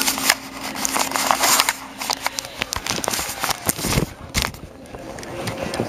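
Handling noise on a handheld camera's microphone as it is moved and covered: rustling, crackling and clicks, with a heavy thump about four seconds in.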